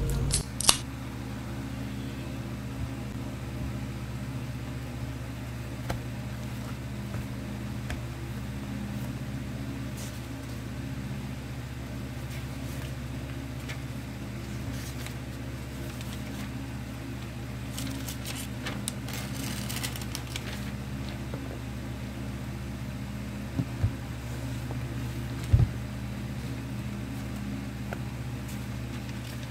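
Steady low machine hum in a small room. Over it come a few light knocks and, about two-thirds of the way through, a brief rustle from a pen and a legal pad being handled.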